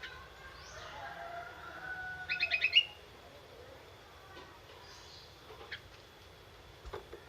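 A young, recently wild-caught sirtu songbird giving a quick stuttering chatter of about six sharp notes, a little over two seconds in, after some softer thin whistles.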